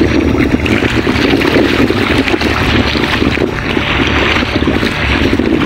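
Steady wind buffeting the microphone over the wash of shallow sea water.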